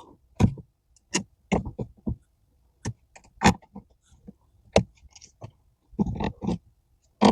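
Irregular clicks, knocks and rubbery squeaks of a tight rubber brake pedal cover being stretched and worked onto a car's brake pedal by hand.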